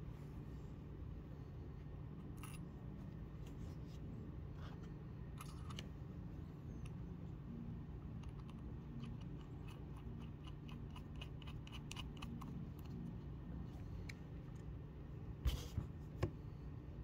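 Faint small clicks and ticks of a fitting being turned by hand on the fuel-level sensor stud in a plastic fuel pump housing, over a steady low hum. Three sharp knocks about three-quarters of the way in, as parts are handled and set down.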